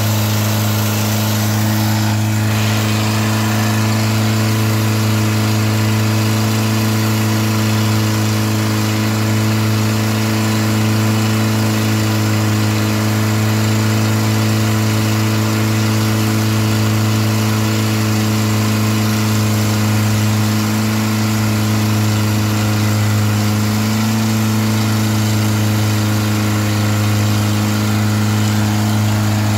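Long-tail boat's exposed automobile engine running steadily at cruising speed through a short open exhaust stack, a loud even drone that holds its pitch, with a slight waver about three quarters of the way through. Under it, a steady hiss of wind and water spray.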